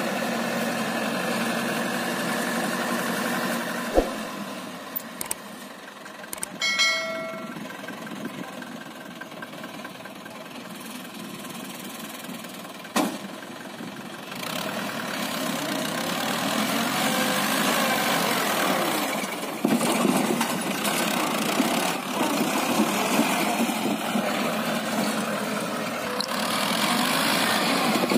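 Mahindra 575 DI tractor's four-cylinder diesel engine running steadily as the tractor works through a flooded, muddy field, growing louder from about halfway through as it comes closer. A couple of sharp knocks and a brief ringing tone come in the first third.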